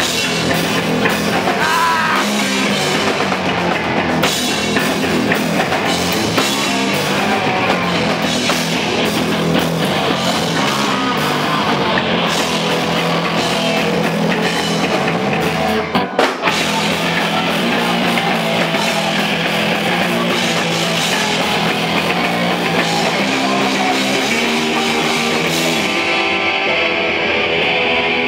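Hardcore punk band playing live at full volume: distorted electric guitars, bass and fast drums, with a short break about halfway through. Near the end the cymbals stop and a guitar carries on largely alone.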